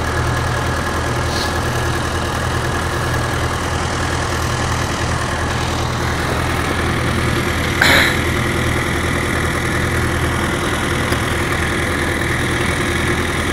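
An engine idling steadily, with one short knock about eight seconds in.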